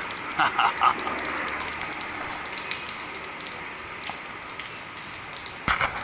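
Steady rain-like rush of water splashing and falling at an Evapco cooling tower.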